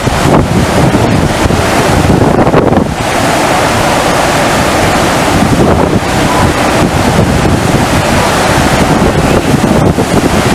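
FlowRider surf simulator: a sheet of pumped water rushing steadily up its padded ramp, loud and continuous, with wind buffeting the microphone.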